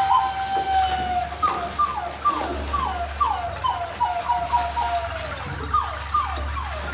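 Whistle-like tone held steady for about a second and sagging a little lower, then a string of short falling swoops, about two a second, that slowly grow softer.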